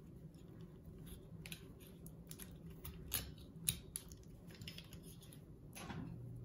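Faint clicks and taps of a small metal binder clip being worked onto the end of a wooden dowel axle against a plastic wheel, with two sharper clicks a little after three seconds in.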